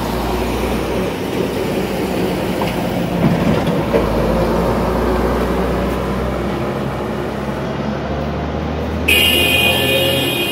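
City street traffic: a steady low rumble of vehicles running past. About nine seconds in, a loud high-pitched sound with several tones sets in for about a second and a half.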